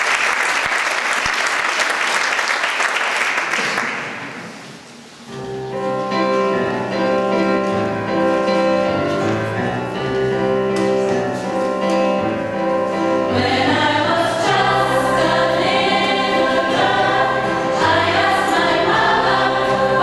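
Audience applause that dies away after about four seconds. A second later a choir starts singing, and the sound grows fuller about halfway through.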